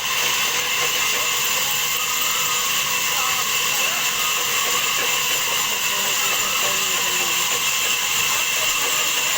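Sawmill saw running steadily with a continuous high-pitched whine and hiss, with faint voices underneath.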